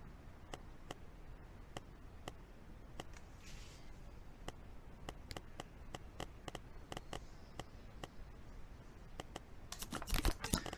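Computer mouse clicking irregularly, a few sharp clicks a second, with a quicker, louder run of clicks near the end.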